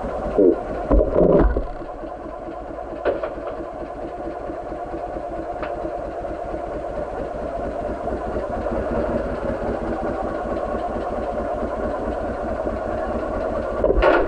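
Motorcycle engine idling steadily, with a few short loud bursts about a second in and again near the end.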